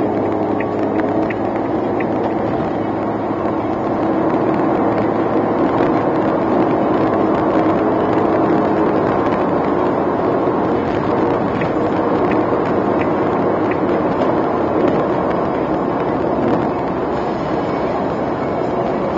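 In-cabin road noise of a Suzuki Alto (HA36S) with a 660 cc naturally aspirated engine and CVT, cruising at expressway speed. A steady rush of tyre and wind noise carries an even engine hum that is clearer in the first half and then blends into the rush.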